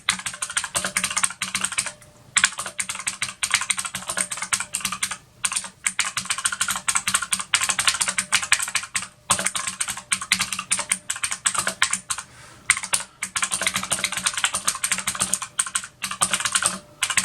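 Sandberg Firestorm mechanical keyboard being typed on fast and continuously: a dense run of key clicks broken by a few short pauses.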